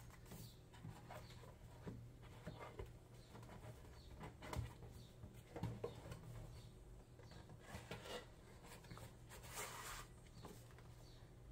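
Faint rustling, tapping and rubbing of an album's cardboard boxes, plastic sleeve and photocards as they are handled and set down, over a low steady hum.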